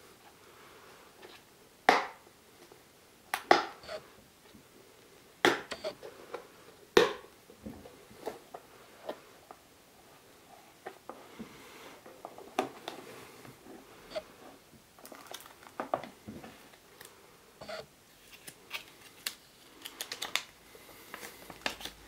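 Snap latches of a black plastic hard case clicking open: four sharp snaps over the first seven seconds. Then lighter clicks and rustling as the contents are handled, ending in a quick run of crinkling as a paper manual and plastic wrapping are unfolded.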